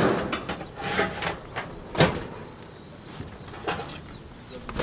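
Ribbed steel wall panel being worked into place by hand: metal scraping and rattling with a few sharp knocks, the loudest about two seconds in.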